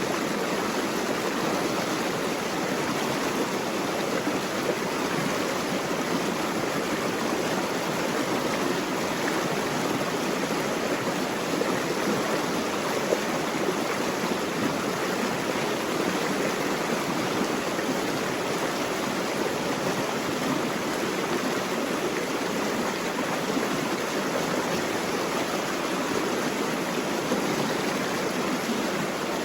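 Steady, even rush of flowing water with no breaks or distinct splashes.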